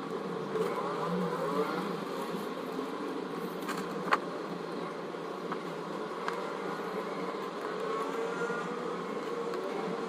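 A steady mechanical hum with a drone in it, with one sharp click about four seconds in.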